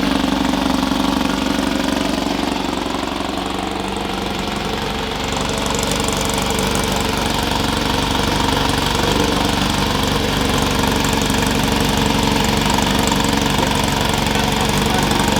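An engine running steadily at idle. It eases off slightly a couple of seconds in and picks back up about halfway through.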